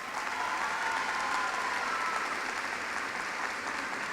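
Large audience applauding steadily in a big hall, easing slightly in the second half.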